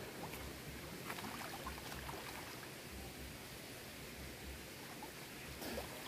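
Faint lapping and light splashing of water as a person swims slowly through a pool, over a steady background hiss.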